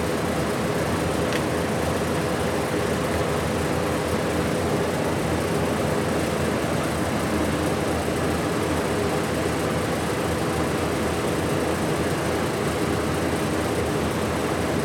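Steady, even hum and hiss of running shop machinery, unchanging throughout, with a few faint steady tones in it.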